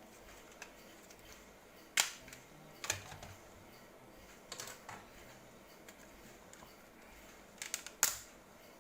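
Sharp hard-plastic clicks and taps from a laptop being worked on during a hard-drive-to-SSD swap, a few spread out, the loudest about two seconds in and near the end.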